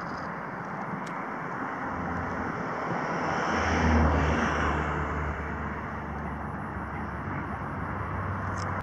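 A passing engine drones over a steady outdoor hiss. It grows louder to its peak about four seconds in, then slowly fades.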